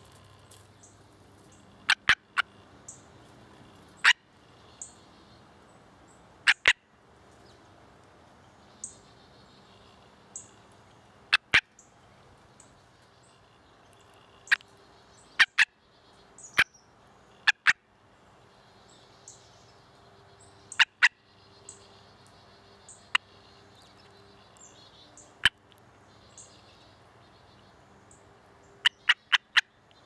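Gray tree frog held in the hand giving short, sharp barking calls, singly or in quick pairs and threes, a second or a few seconds apart. This is a bark quite unlike the musical trill of its mating call.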